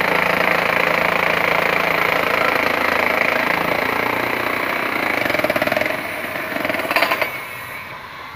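Handheld demolition hammer (jackhammer) breaking up concrete, hammering rapidly and steadily. It eases off about six seconds in and stops after a last short burst near the end.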